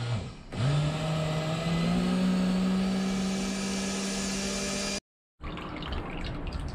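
Electric blender motor starting up, its pitch rising quickly and then holding steady as it runs, before stopping abruptly.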